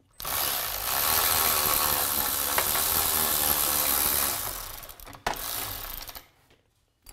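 Ratchet wrench clicking rapidly for about four seconds while the fasteners on a garage door torsion spring's center bracket are loosened, then fading, with one sharp click a little after five seconds in.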